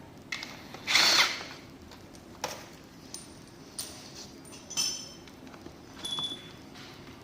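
A power driver with a T45 Torx bit spins briefly about a second in, backing out the screws of a steering rack's rear cover. Several sharp metallic clinks follow as the screws and tool are handled.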